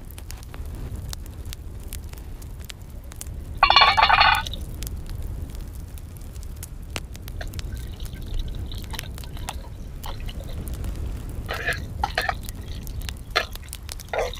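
Small wood fire crackling under an aluminium pan, over a steady low rumble, with one loud noise lasting about half a second about four seconds in. Near the end come a few knocks of a metal spoon against the pan as chopped onions are stirred in the oil.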